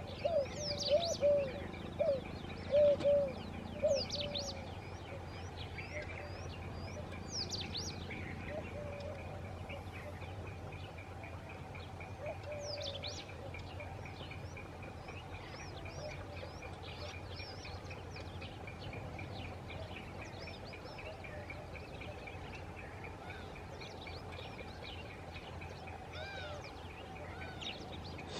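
Wild birds calling: a run of short, low repeated notes, loudest in the first four seconds, with scattered high, quick falling chirps over a steady faint background hum.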